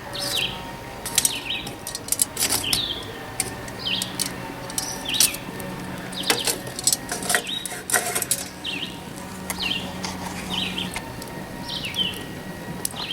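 Small birds chirping over and over, each chirp a short high falling note, with scattered sharp clicks in between.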